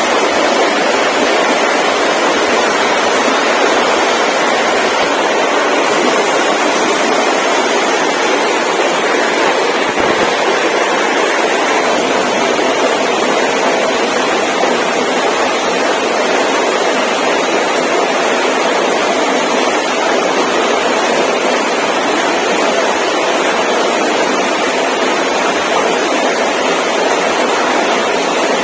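Loud, steady rushing noise with no breaks or distinct events, like rushing water or wind.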